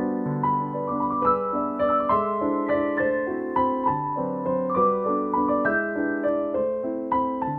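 Background instrumental music: a keyboard melody of short notes over held low notes.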